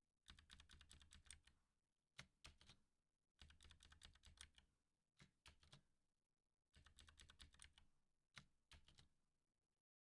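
Faint computer keyboard typing in three short bursts of rapid key clicks.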